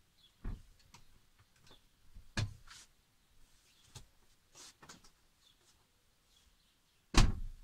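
Scattered knocks and bumps from someone moving about and handling things in the back of a motorhome, about five in all, with one loud bang near the end like a door or cupboard being shut.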